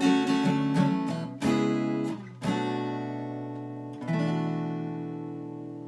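Acoustic guitar strumming chords with no singing: a few quick strokes, then two chords, about halfway and about two-thirds of the way through, left to ring out and slowly fade.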